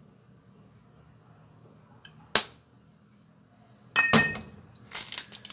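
Kitchenware clinks: a sharp tap about two seconds in and a louder, briefly ringing clink about four seconds in. Near the end comes the crinkle of a plastic bag being handled.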